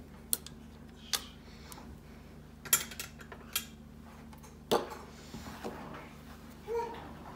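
Metal spoon scraping and clinking against a stainless steel mixing bowl and a stand mixer's kneading hook while clearing off sticky bulgur mixture, with half a dozen sharp, irregular clinks.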